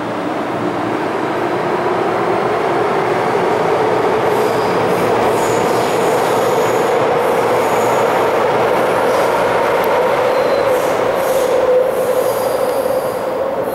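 MTR Island Line metro train running through the underground station behind the platform screen doors: a steady rumble of wheels on rail with a motor whine that slowly rises in pitch. Thin, high wheel squeal comes in now and then during the second half.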